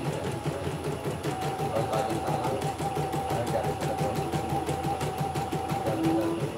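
CNY portable computerized embroidery machine stitching a test design after repair: a rapid, even clatter of needle strokes over a steady motor whine that drops out about six seconds in.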